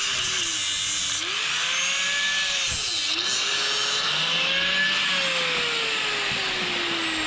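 Corded mains angle grinder cutting through the hardened shackle of a Litelok X1 lock. The motor pitch dips sharply and recovers twice as the disc bites under load. From about two thirds of the way in, the pitch falls steadily as the grinder runs down.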